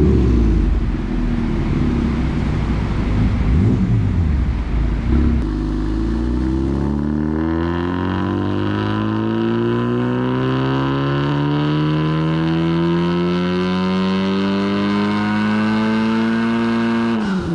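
Honda Civic Type R's turbocharged 2.0-litre four-cylinder running on a hub dyno through a catless downpipe and AWE Touring exhaust. It revs unevenly and lightly at first, then about five seconds in goes into a full-throttle dyno pull, its note rising steadily for about eleven seconds. It drops off sharply near the end as the throttle closes.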